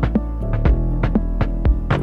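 Background music with a steady drum beat over held chords and a deep bass line.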